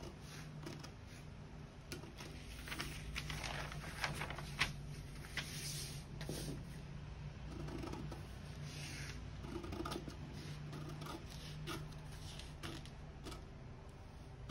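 Scissors cutting through a sheet of paper pattern along a curve: irregular crisp snips with paper rustling as the sheet is moved, over a low steady hum.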